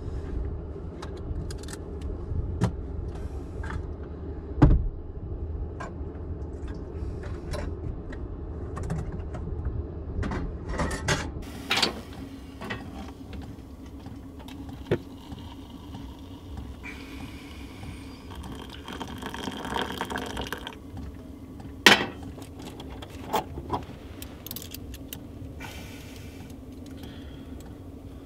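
Knocks, clicks and clatter of gear being handled in a cramped camper interior, with two sharp knocks standing out. A low rumble fills the first dozen seconds. Around the middle, hot water is poured from a kettle into an enamel mug for a few seconds.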